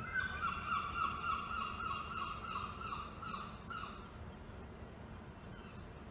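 Train horn held in one long note for about four seconds, then it stops.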